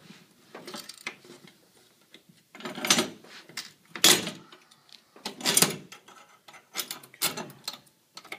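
Metal antenna mounting clamps and brackets clanking and rattling against a metal mounting pipe as they are brought around it and fitted, in several short bursts of clatter, the loudest about three and four seconds in.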